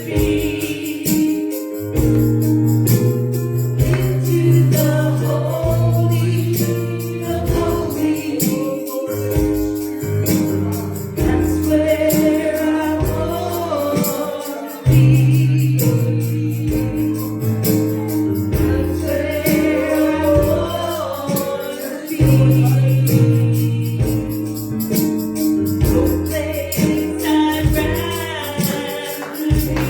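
Gospel worship song: voices singing over a band with a steady bass line and percussion.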